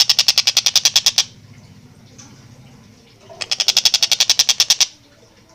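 Collared kingfisher (tengkek buto) giving its rapid chattering call, a fast run of harsh 'kek' notes at about fourteen a second. It calls twice: one run breaks off about a second in, and a second runs from about three and a half to five seconds.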